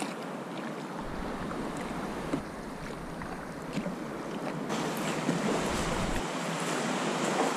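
Sea water lapping and splashing against a kayak close to the microphone, a steady wash with small splashes that turns louder and hissier about two-thirds of the way through.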